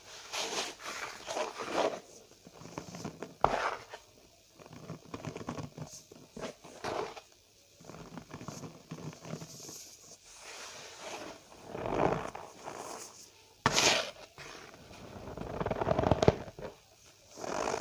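Cornstarch powder being squeezed and pressed by hand, giving irregular crunching, squeaky crackles in bursts. A sudden loud burst comes about two-thirds of the way in, and another long one follows near the end.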